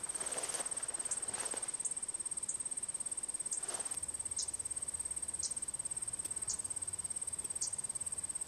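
An insect's steady, high-pitched pulsing trill, with faint rustling near the start and about three and a half seconds in.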